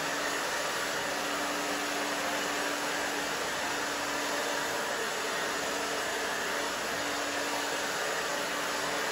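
Handheld hair dryer running steadily, a constant rush of air with a faint low hum under it, as hair is blow-dried over a round brush.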